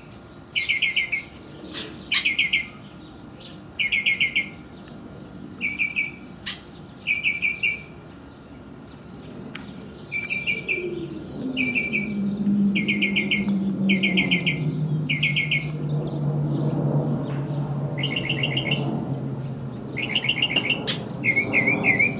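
A perched songbird repeating short, rapid trilled calls, each about half a second long, every one to two seconds. From about ten seconds in, a low engine hum comes in, drops in pitch and then holds steady, about as loud as the calls.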